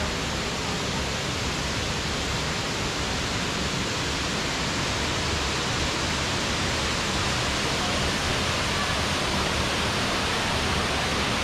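Steady rushing of a waterfall pouring into its plunge pool, a little louder near the end.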